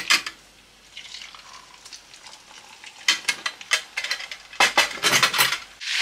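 Butter sizzling faintly in a nonstick frying pan, then a whole flatfish goes in about three seconds in and the hot fat spits and crackles loudly.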